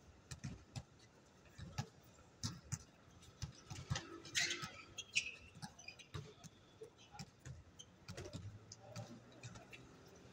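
Distant pickup basketball game: irregular thumps and clicks of a basketball bouncing and players' feet on the hard court, with one louder, higher-pitched sound about four and a half seconds in.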